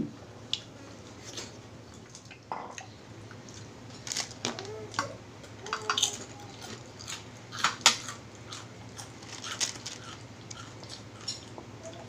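Close-miked eating: chewing and mouth sounds, with scattered sharp clicks of forks against the dishes and a few short hums.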